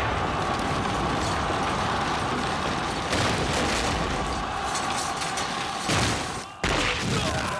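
Staged battle sound effects: a continuous loud din of explosions and fighting, with sudden loud blasts about three seconds in and twice more near the end.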